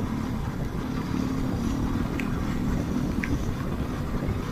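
Motorcycle engine running at a steady cruising speed, with steady wind and road noise. A couple of faint ticks sound in the middle.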